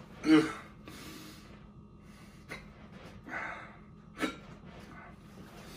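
A man's heavy breathing and gasps after a bite of wing with very hot sauce, starting with a short grunt and with a sharp catch of breath about four seconds in.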